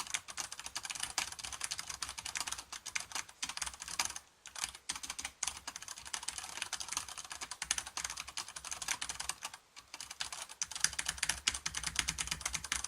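Fast typing on a mechanical keyboard fitted with enjoyPBT dye-sub PBT Cherry-profile keycaps: a dense run of keystroke clacks, with two brief pauses, about four seconds in and near ten seconds in.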